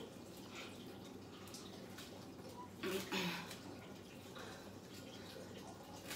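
Faint, short exhales of a person working through oblique crunches in suspension straps, with a brief voiced grunt of effort about three seconds in.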